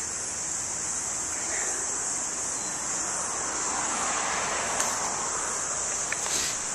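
A car passing on the street, its tyre and engine noise swelling and fading around the middle, over a steady high-pitched drone of cicadas in the trees. A couple of faint clicks near the end.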